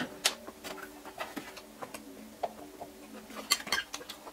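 A person eating noodle soup: a slurp of noodles at the start, then soft chewing and mouth sounds, and a few sharp clicks about three and a half seconds in from a steel fork against a glass bowl.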